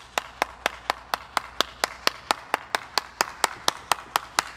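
Camera shutter firing over and over in a rapid burst, an even run of sharp clicks at about four a second.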